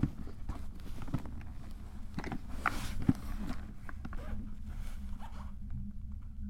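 Cable car cabin in motion: a steady low rumble with scattered clicks and creaks, and a sharper knock about three seconds in.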